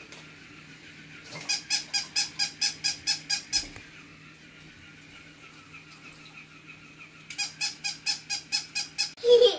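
Battery-operated walking toy Dalmatian puppy giving quick, high electronic yips, about five a second, in two runs of about two seconds each, over a faint steady hum.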